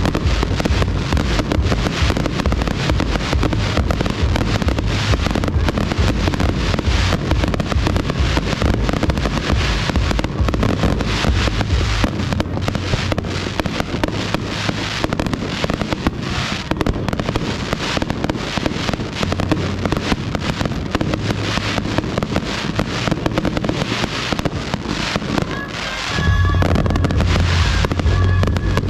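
Fireworks finale barrage: shells bursting in rapid, unbroken succession with a dense crackling rattle. Deep booms fill the first dozen seconds, thin out, then come back heavily near the end.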